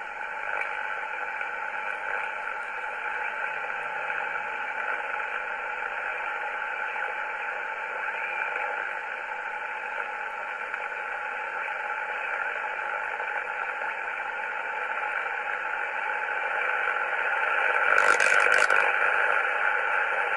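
Kenwood TS-530S HF transceiver's receiver hissing with band noise through its speaker as it is tuned across the 7 MHz band; no station comes through. The hiss grows louder near the end, with a short crackle about eighteen seconds in.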